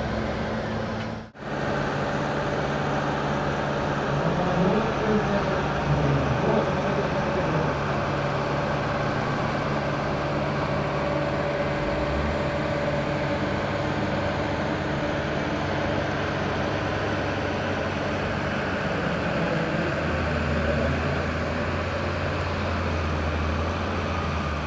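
Farm tractor's diesel engine running under heavy load, held steady as it drags a weight-transfer sled through mud. The sound cuts out for an instant about a second in.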